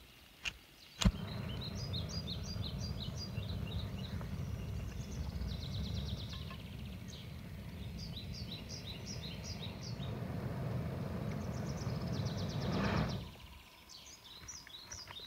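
A small gas canister camping stove being lit: a few sharp clicks, then a louder pop about a second in, followed by the burner's steady low rushing, which drops away about two seconds before the end. Birds sing repeated chirping phrases throughout.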